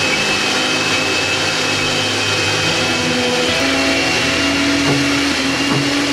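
Hamilton Beach countertop blender running steadily, its motor and blades churning a thick liquid mix of cream cheese and table cream.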